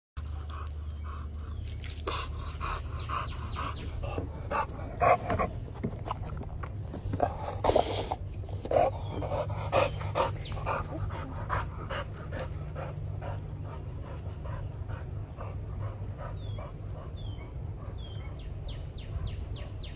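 A dog panting rapidly close by, in quick rhythmic breaths that are loudest in the first half and fainter later, over a steady low hum.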